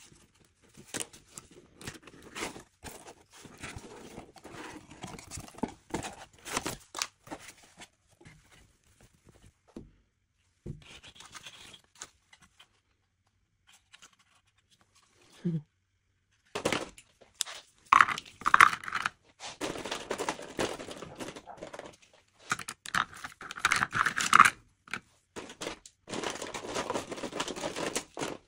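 Hands unpacking a cardboard box: cardboard flaps and packaging rustling and tearing, with scattered light clicks and knocks of small wooden pieces. Quiet for a few seconds midway, then denser rustling and clattering as coloured pencils are handled.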